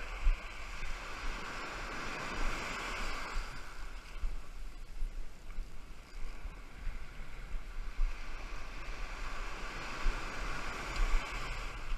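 Ocean surf breaking and washing up a sandy beach, swelling louder twice, a couple of seconds in and again near the end, with wind rumbling on the microphone.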